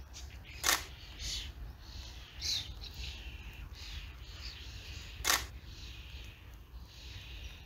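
Birds calling in short descending chirps over a low steady rumble, with two sharp clicks about four and a half seconds apart.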